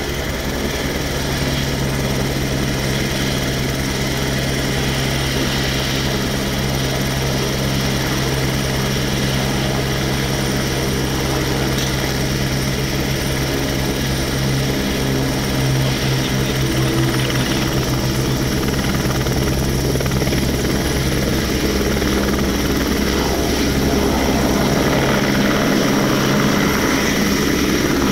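AS350 Ecureuil helicopter's turbine and main rotor running on the ground: a steady rotor beat under a high turbine whine that rises a little past the halfway point. The sound grows louder over the last few seconds as power comes up and the helicopter lifts off.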